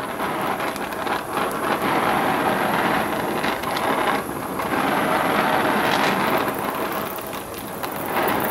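Brazing torch flame hissing steadily as it heats a tractor clutch rod to build up a worn pin hole with braze, with a few brief dips in level.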